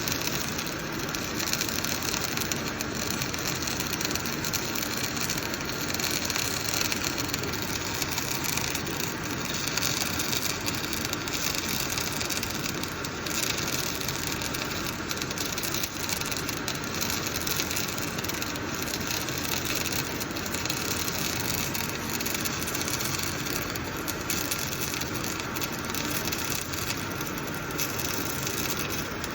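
Semi-automatic gas-shielded arc welding: the wire-fed arc crackling and sputtering steadily, with dense irregular ticks, unbroken throughout.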